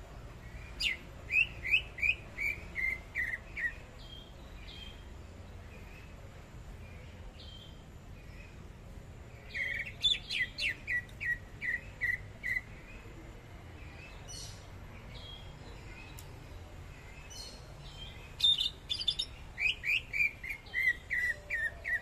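Caged cucak ijo (greater green leafbird) singing: three bouts of rapid, clear whistled notes that step down in pitch across each phrase. Scattered single high chips fall between the bouts.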